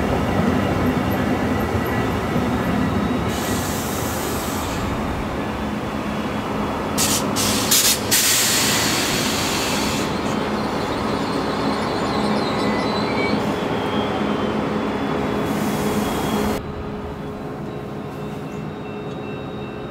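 VIA Rail Siemens Venture passenger train passing close at speed: a steady rush and rumble of wheels on rail, with a few sharp clacks about seven seconds in. The sound drops suddenly about three seconds before the end as the last car goes by and the train pulls away.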